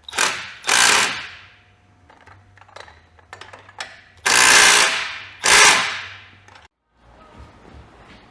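Impact wrench running in four short bursts, two near the start and two about halfway through, driving the Sportster's rear shock bolt home through the license plate bracket.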